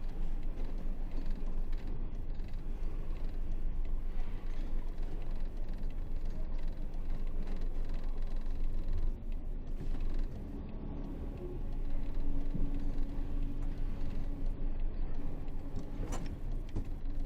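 Isuzu 8x4 30-ton truck's diesel engine running, a low rumble with mechanical rattle. The sound eases briefly about two-thirds of the way in, then comes back with a steady droning hum on top.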